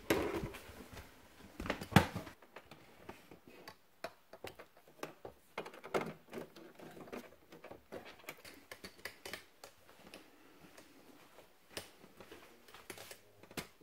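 Irregular small clicks and knocks of a 3.5 mm jack plug and its cable being handled and pushed into the audio socket on the back of a TV. One sharper click comes about two seconds in.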